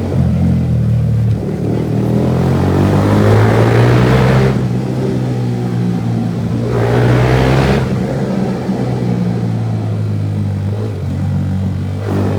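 Motorcycle with a loud aftermarket exhaust running under way, a steady low engine note with two rising rev build-ups, each cut off sharply, the first about four seconds in and the second near eight seconds.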